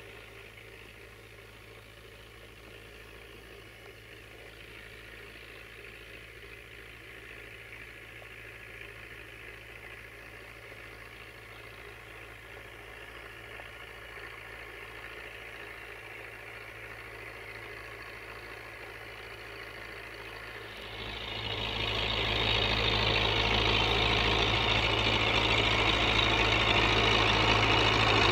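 UTB U650 tractor's four-cylinder diesel engine running as it approaches, growing slowly louder; about 21 seconds in the sound jumps much louder and harsher and stays so.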